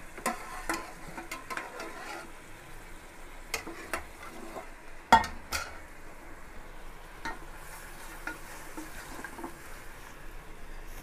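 Wooden spatula stirring chicken pieces frying in an aluminium pressure cooker pan, scraping and knocking against the pot over a light sizzle. One sharp knock about five seconds in is the loudest.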